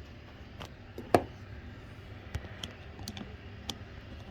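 Scattered light clicks and taps of a flathead screwdriver turning out the jet screw in a Honda GCV160 lawnmower carburetor, metal on metal, with the sharpest click about a second in.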